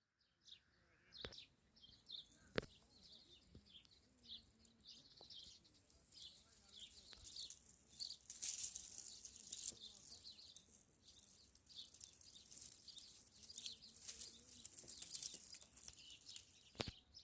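Small birds chirping over and over, faint, with a light hiss and a few sharp clicks.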